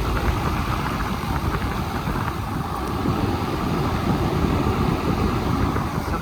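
Several outdoor air-conditioner condensing units running together: a steady hum and whoosh from their condenser fans and compressors.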